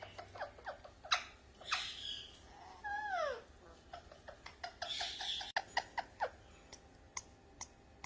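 Pet parrot making a string of quick clicks and short chirps, with a falling whistle about three seconds in and a short harsh call near the middle.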